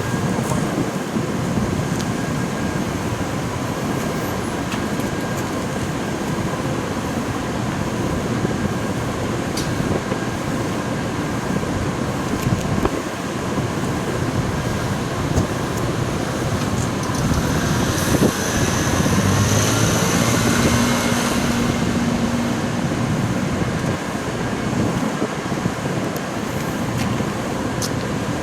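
Steady road-traffic noise, with a vehicle passing close and loudest about 18 to 22 seconds in.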